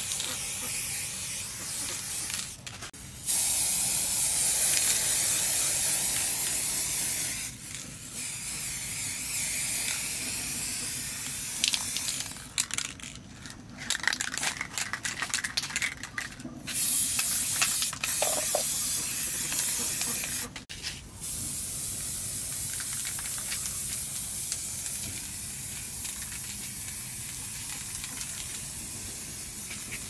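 Aerosol spray-paint can spraying: long hissing sprays broken by short pauses.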